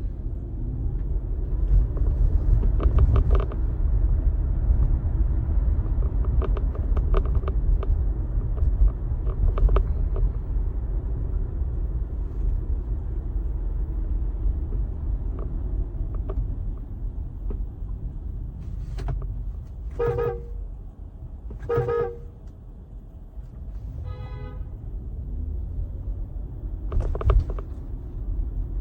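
Tesla's horn sounding in several short toots, heard from inside the car over a steady low road rumble, the loudest two about two-thirds of the way in; honks meant to catch the attention of people outside.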